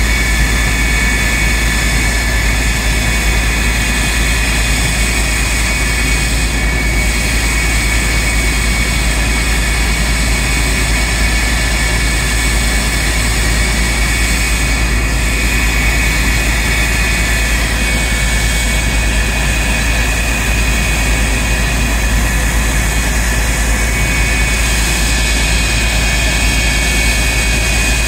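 Canadair CF-104D Starfighter's J79 turbojet running steadily on a ground run: loud, even jet noise with a steady high whine.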